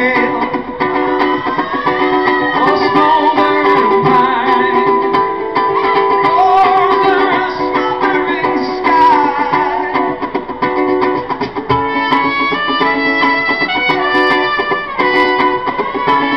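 Live band playing an instrumental passage with trumpet, guitars and bass. The melody slides in the first half and turns to quick separate notes in the second half.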